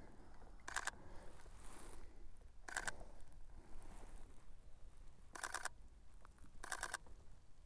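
Sony mirrorless camera's shutter firing in four short bursts of rapid clicks, each burst a few frames of continuous shooting.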